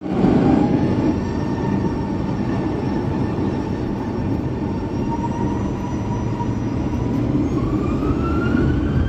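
The Boeing 737-900ER's CFM56-7B turbofan engines heard from inside the cabin: a steady whine over a low rumble while the jet turns onto the runway. About seven seconds in, the whine starts rising in pitch as the engines spool up for the takeoff roll.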